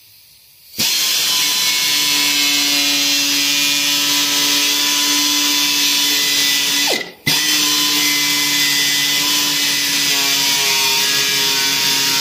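Handheld cut-off tool with a thin, cheap cutting wheel starts about a second in and runs at a steady whine while cutting through the car's plastic-like composite firewall. About seven seconds in it winds down and stops for a moment, then starts again and keeps cutting.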